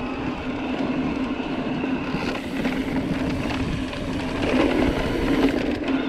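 Electric mountain bike rolling along a dirt trail: tyres on loose dirt and small stones, with the bike rattling over the bumps and a steady drone underneath.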